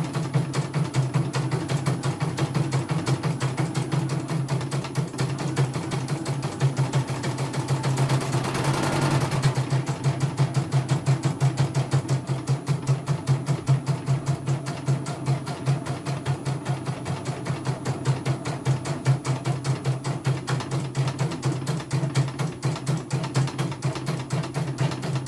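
CNY computerised embroidery machine stitching out a design: a steady hum with a fast, even clatter of needle strokes, several a second, and a brief louder whir about eight to nine seconds in.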